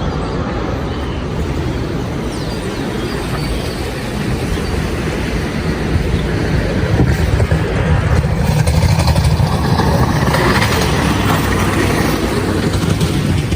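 Steady rumble of passing vehicles, growing louder about six seconds in.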